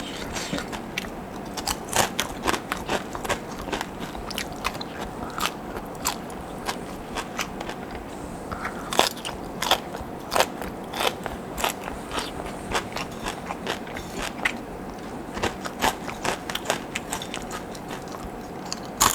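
A person chewing and crunching crisp fried potato sticks, with many sharp, irregular crunches all through.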